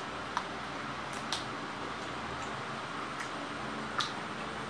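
Eating sounds: short, irregular smacks and clicks of a mouth chewing fried noodles with chicken, about six in all, over a steady background hiss.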